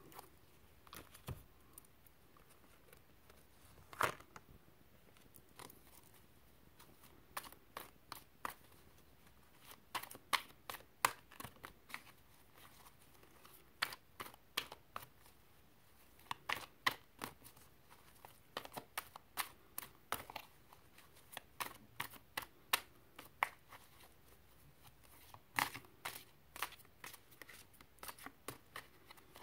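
A deck of reading cards being handled: irregular short snaps and flicks of card stock, some in quick clusters and some with quieter gaps between them, as cards are shuffled and drawn.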